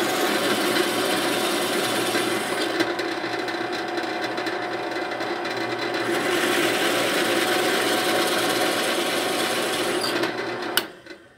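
Drill press running with a homemade plug cutter, a 20 mm (3/4-inch) hole saw with an angled blade welded inside, boring into the side grain of a wooden board to cut tapered plugs. The motor hum and the rasping of the cutter in the wood are steady, then stop abruptly near the end with a click.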